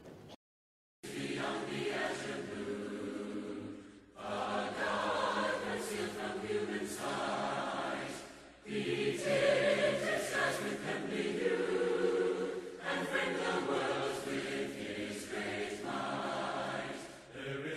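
Congregation singing a hymn a cappella, starting about a second in, in sung phrases with short breaks between them.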